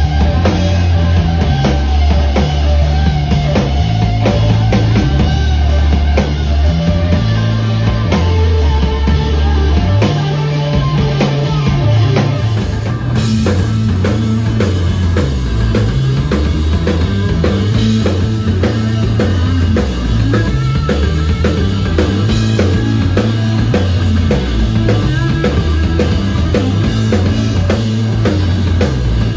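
A rock band playing loud live: electric guitar, bass guitar and a drum kit, with busy drumming over a heavy, moving bass line.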